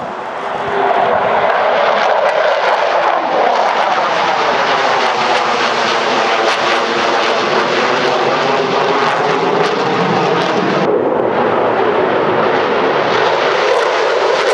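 Jet noise of a US Air Force F-15E Strike Eagle's twin Pratt & Whitney F100 turbofans as it flies past low and banks overhead. The sound swells about a second in and stays loud, with a slowly sweeping, phasing whoosh through it.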